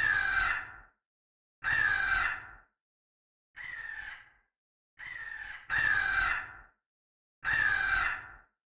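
A woman's scream sound effect, repeated six times in short bursts of about a second each, the pitch falling at the end of each one, with dead silence between them; some copies are louder than others.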